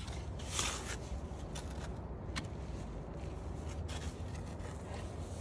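Hand digging tool scraping into packed sand, with one louder scrape about half a second in and a few short scrapes and ticks after it, over a steady low rumble.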